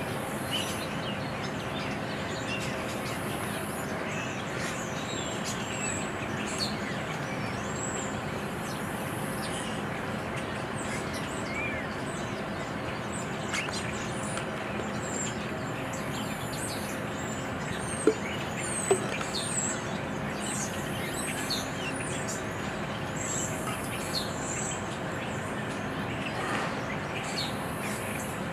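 Outdoor ambience: many small birds chirping and calling over a steady low hum of distant traffic and machinery. Two sharp clicks come close together about two-thirds of the way through.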